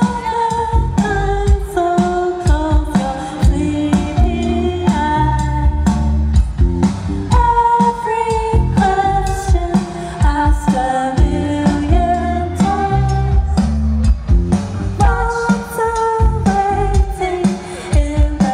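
Live band music played loud: a wavering melodic lead, likely a singer, over heavy bass and a drum beat.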